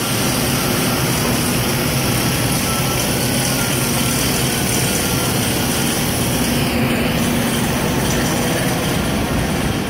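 Loud, steady din of sheet-metal shop machinery and ventilation, a continuous rush of noise with a faint hum underneath.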